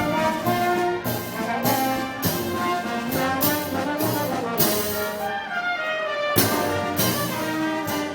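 Brass band playing Moros y Cristianos festival music, trombones and trumpets carrying the melody over a steady percussion beat of about one strike every 0.6 seconds. The percussion stops for about a second near the end, then comes back in.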